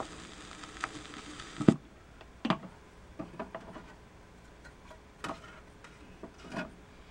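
Steady hiss from the 33 1/3 rpm record player that stops with a sharp knock about two seconds in, then scattered clicks and knocks of the record being lifted, turned over and set back on the turntable.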